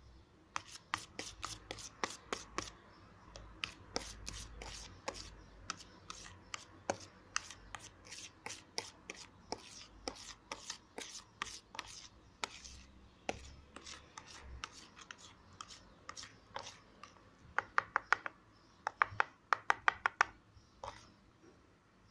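Metal teaspoon stirring and scraping a thick, gloopy dish-soap and baking-soda mixture in a plastic container, with frequent clicks of the spoon against the plastic. Near the end come two short runs of louder, quick taps.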